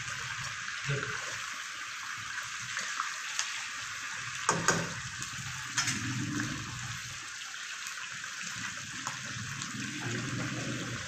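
Stuffed brinjals frying in hot oil in a stainless steel kadai, a steady sizzle, with a few sharp clinks about halfway through as more brinjals go into the pan.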